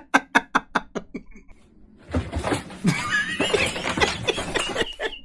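Human laughter: quick, short bursts of laughing at first, then after a brief lull a longer, breathier, wavering stretch of laughter from about two seconds in.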